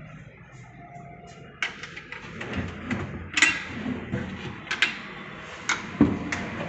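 Laminated wardrobe drawers being pulled open and handled, with a series of sharp wooden knocks and clacks starting about a second and a half in.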